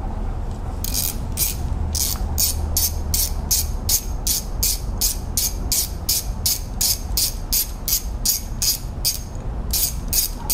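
Hand ratchet clicking steadily, about three to four clicks a second, as it backs out an 8 mm bracket bolt on a long socket extension; the clicking starts about a second in and pauses briefly near the end.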